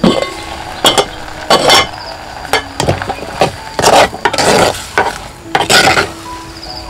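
A wooden-handled ladle stirring and scraping food frying in a clay pot, with repeated knocks and scrapes against the pot over a steady sizzle. A knock right at the start as the clay lid comes off.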